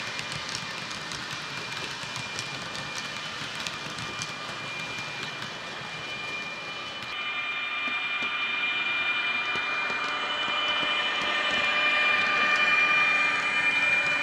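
Factory-fitted DCC sound decoder in a Roco model of an ÖBB class 1116 electric locomotive playing its running sound through the model's small, weak-sounding speaker: a steady high electric whine with the light clicking of model wheels on the track. It gets louder near the end as the locomotive comes closer.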